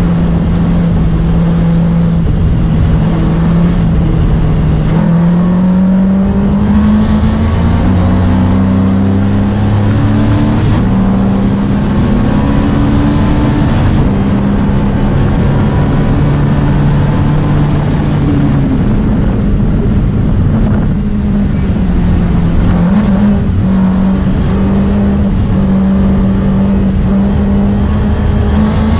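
Opel Kadett GT/E historic race car's engine heard from inside the cabin, running hard at racing speed: the pitch climbs as it revs out and steps down at each gear change, with some easing and recovery as it goes through corners.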